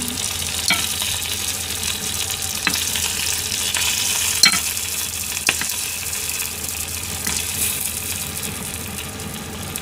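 Chicken wings sizzling steadily in hot oil in a frying pan, with a handful of sharp clicks as wooden chopsticks knock against the pan while lifting the wings out.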